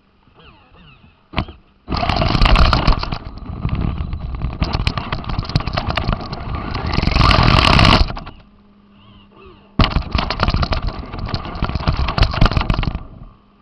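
Radio-controlled car driving over rough ground: two long stretches of loud, rattling motor and tyre noise, the first about six seconds and the second about three, separated by a quieter gap with a steady low hum.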